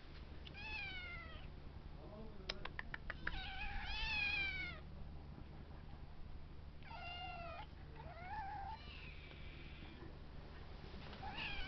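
Several 14-week-old kittens meowing in turn, about six meows with short pauses between, the longest one about four seconds in. A quick run of clicks about two and a half seconds in.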